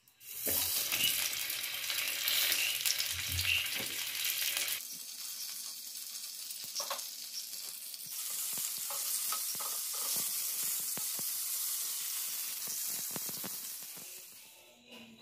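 Homemade chicken sausages sizzling as they fry in oil in a pan: a steady hiss, fuller for the first five seconds, with scattered small pops and clicks after that.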